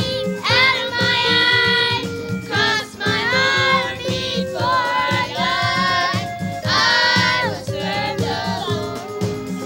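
A children's gospel song: several voices singing a melody over an instrumental backing with a steady drum beat.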